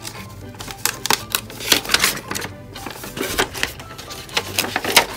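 Gift wrapping paper rustling and crackling in irregular sharp bursts as it is unfolded and pulled off a box, with background music underneath.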